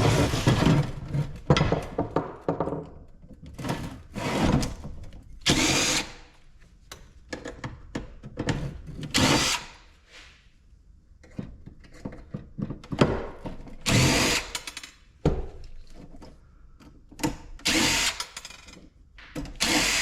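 Power drill run in short bursts, about eight over the stretch, each under a second, backing out screws from a small ice maker's housing. Between them come light knocks and the clatter of parts being handled.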